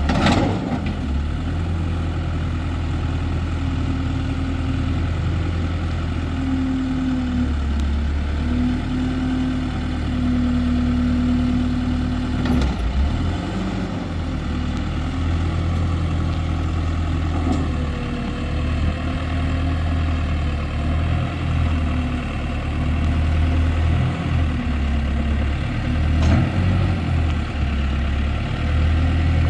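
Case 580M Turbo backhoe's turbocharged diesel engine running steadily, with a higher hum that comes and goes in the first half.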